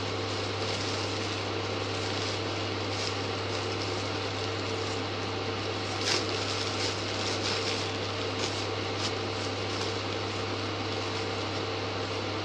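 Clear plastic bag crinkling in short spells as hands work at it, loudest about six seconds in, over a steady low hum.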